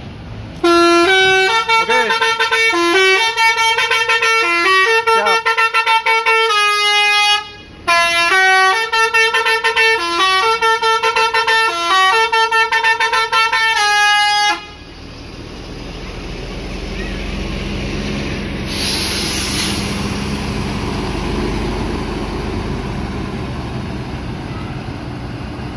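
A bus's basuri horn, a multi-tone musical air horn, plays a tune of stepping horn notes for about fourteen seconds with a short break halfway. It then stops and the bus engine runs on, with a brief hiss of air about five seconds later.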